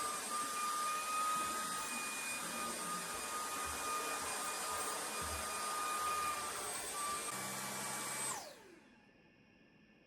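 Vacuum cleaner running with a steady high whine, switched off about eight seconds in, its motor quickly winding down.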